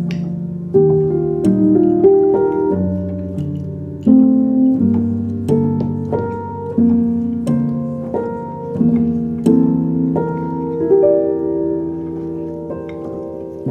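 Background piano music: notes and chords struck one after another at a steady, unhurried pace, each fading before the next.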